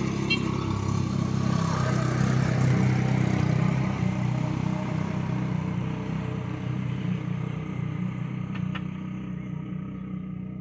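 An engine running steadily with a low hum, growing louder over the first few seconds and then slowly fading.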